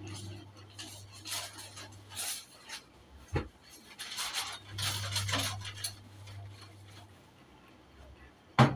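Rustling and small clinks and knocks of kitchen utensils and containers being moved about and wiped on a worktop, with a sharper knock near the end.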